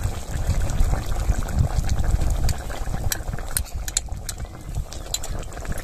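Fish curry gravy bubbling at the boil in a pan, with a few light clicks in the middle.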